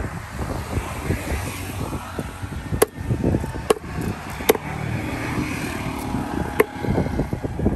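Four sharp knocks of a knife chopping through fish on a cutting block, each with a short ring, over a steady low rumble.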